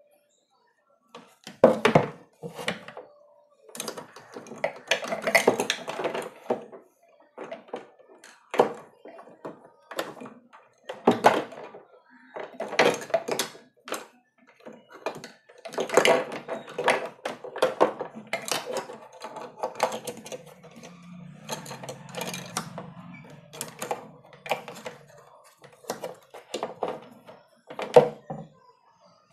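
Hard plastic parts of an RO water purifier being handled and fitted: irregular knocks, clicks and rattles of the filter cartridge housings and push-fit tubing being pushed into place.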